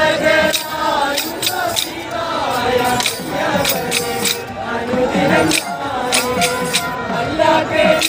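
Group singing with a sharp percussive beat struck about every third of a second, in uneven runs, over crowd noise.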